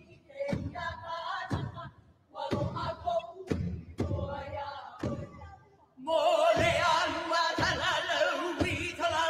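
Hawaiian hula kahiko chanting with deep drum beats about once a second. The chant is sparse with short pauses at first, then about six seconds in a fuller group of voices comes in louder.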